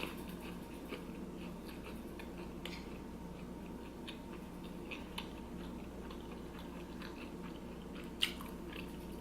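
A person chewing food close to the microphone, with scattered small crunches and mouth clicks and one sharper click about eight seconds in, over a faint steady hum.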